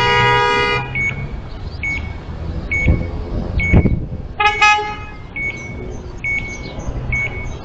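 Car horn held in a long blast that stops under a second in, then a different horn gives two short toots about four and a half seconds in, over street traffic rumble.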